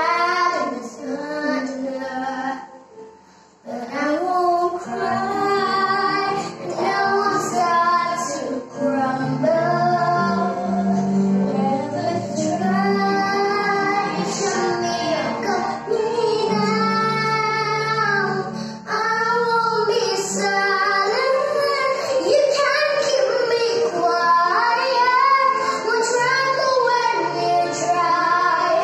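A young girl singing a song, phrase after phrase of sustained and gliding notes, with a short break about three seconds in.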